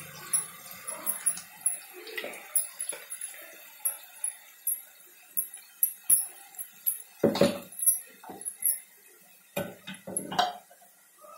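Perforated metal ladle scraping and knocking against an iron kadai while stirring thick tomato-onion paste, with many light bangle clinks; a few louder knocks come in the last few seconds.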